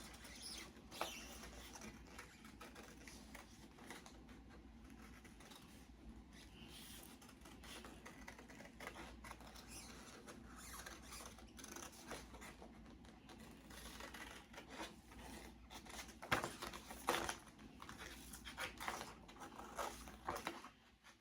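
Scissors cutting through glossy heavyweight printer paper: quiet, irregular snips with paper rustling, and a few louder cuts near the end.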